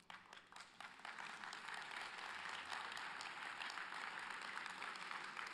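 Audience applauding: a few scattered claps at first, building within about a second into steady applause that holds to the end.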